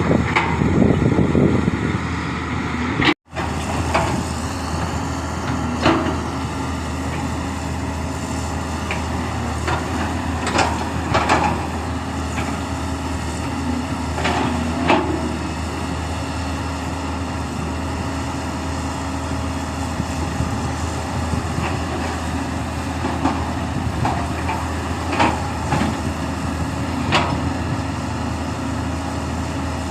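Excavator's diesel engine running steadily, with occasional sharp metallic clanks.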